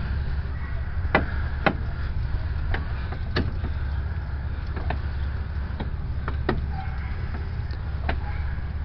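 Scattered sharp metal clicks and clinks, about nine in all, from handling and turning car suspension parts while fitting a new strut, over a steady low rumble.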